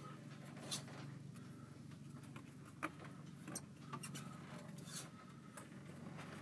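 A handful of faint, scattered clicks and light handling noises as a spin-on diesel fuel filter is loosened with a filter wrench, over a low steady hum.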